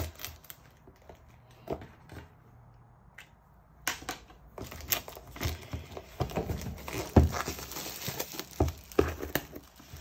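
Plastic shrink-wrap on a cardboard box being slit with a craft knife and peeled off, crinkling and tearing. There are only a few scattered scrapes and clicks at first, then a dense crackling and rustling from about four seconds in.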